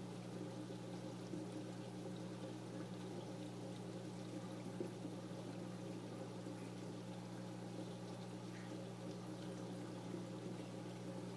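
Saltwater reef aquarium running: circulating water trickling and pouring steadily, over a low, constant hum.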